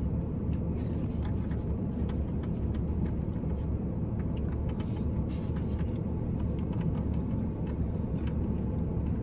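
Parked car's engine idling steadily, heard from inside the cabin as a low, even hum. A few faint clicks and taps from eating are heard over it.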